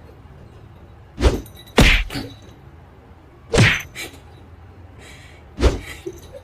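A series of five short thumps or knocks at uneven intervals, the first four falling in two close pairs.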